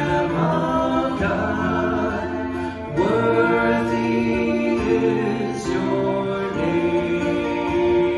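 Live worship song: a man singing lead with a woman's backing vocal, over strummed acoustic guitar and a bowed violin, in long held notes.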